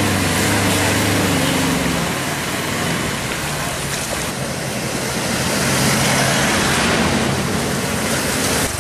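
A loaded small truck's engine running as it drives through floodwater, with a steady rush of water being pushed aside and splashing. The engine is plainest for the first couple of seconds, then fades under the water noise as the truck moves away.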